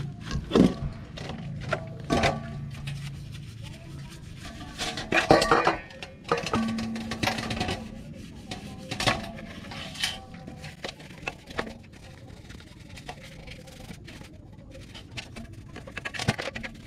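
Brush scrubbing a Yamaha NMAX's metal CVT cover in a steel basin of gasoline, with repeated clinks and knocks of the metal part against the basin. Background music plays underneath.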